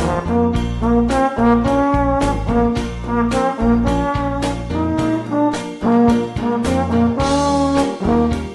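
Trombone playing a blues melody as a string of separate, sustained notes, over a backing accompaniment with a low bass line.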